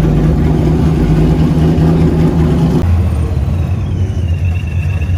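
A car engine running loudly at close range, with a steady exhaust drone that drops to a lower pitch about three seconds in.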